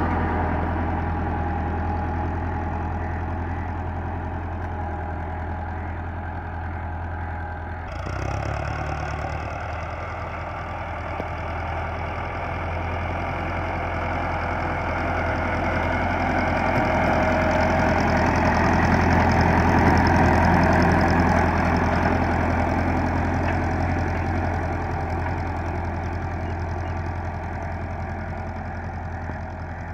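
Diesel engine of a Dewan Foton Leopard tractor running steadily under load as it pulls a spring-tine cultivator through the soil. The sound jumps abruptly about a quarter of the way in. It grows louder as the tractor passes closest, about two-thirds of the way through, then fades as it moves away.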